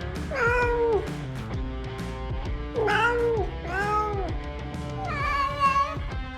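A cat meowing four times, each call rising and then falling in pitch, over background music.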